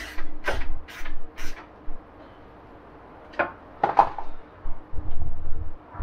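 Short knocks and clatters of hands and tools working on the underside of a van: a few in the first second and a half, then another run about three and a half seconds in.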